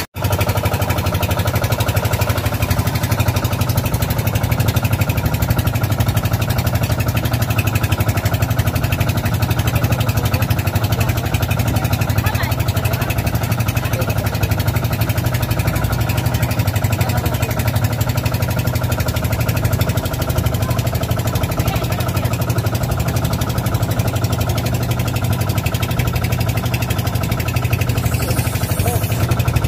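Engine-driven hookah diving compressor running steadily at a constant speed, pumping air down the divers' hoses. The sound cuts out for a split second at the very start.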